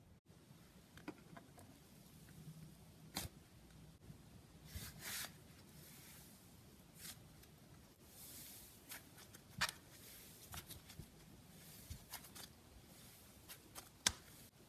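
Fluffy slime being squished and stretched by hand, with irregular soft sticky pops and crackles and a few sharper snaps. The loudest snap comes near the end.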